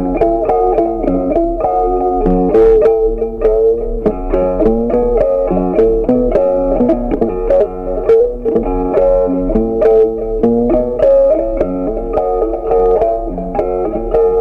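Background instrumental music: a melody of quickly picked guitar notes over a bass line, steady throughout.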